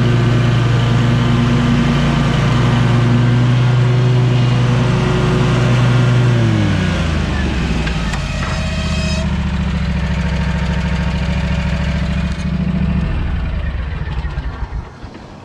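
SCAG V-Ride 2 stand-on mower's engine running steadily, then throttled down about six seconds in to a lower, slower run, with a brief higher whine soon after. Near the end the engine note stops and the sound falls away.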